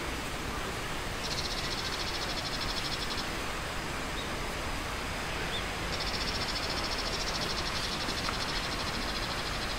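An insect chirring in a rapid, high-pitched pulsed trill, twice: from about one to three seconds in, and again from about six seconds in, over a steady outdoor noise haze.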